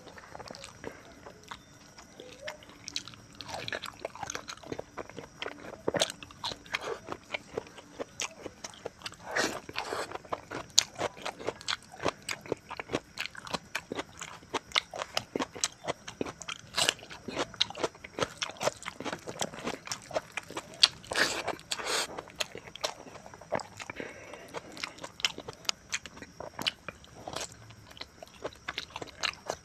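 Close-miked eating of curry and rice by hand: steady chewing and biting with many sharp wet mouth clicks and crunches, and louder crunches now and then.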